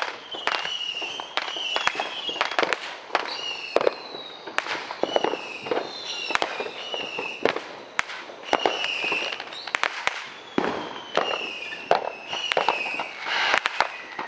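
Consumer fireworks going off non-stop: frequent sharp bangs and crackles at varying distances, with short high whistles and a long falling whistle near the end.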